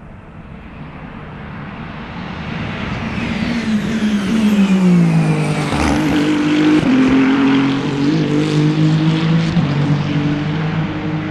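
Race car engine running hard and growing louder over the first four seconds. Its pitch falls steeply about four to five seconds in, then it keeps running loud at a fairly steady pitch with a few small steps up and down.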